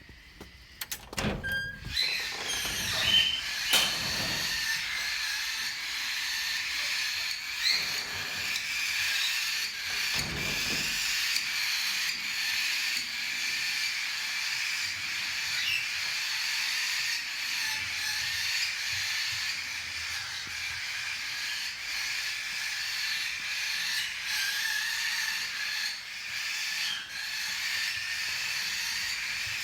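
A crowd of parrots in an aviary chattering and screeching together without pause, a dense wall of high chirps, with a few low thumps in the first seconds and once about ten seconds in.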